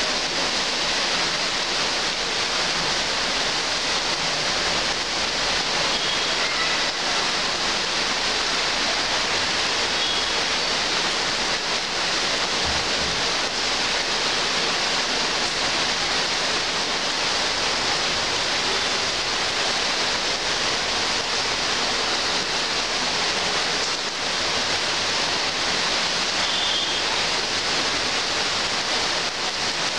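Heavy rain pouring steadily onto trees and foliage: a dense, even hiss that does not let up.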